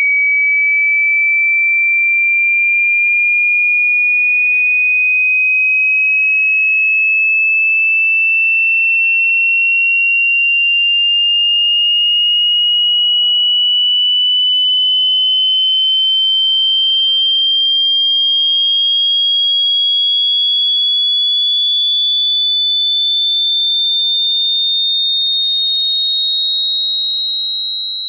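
A pure electronic sine-wave test tone, high-pitched, gliding slowly and evenly upward by nearly an octave at a steady loudness: a frequency sweep played for a hearing test.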